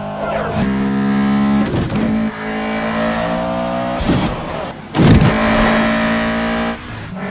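Mitsubishi Eclipse Spyder and Lancer Evolution VII engines running at high revs at speed, holding steady engine notes that step in pitch. Several brief whooshes break in, the loudest about five seconds in.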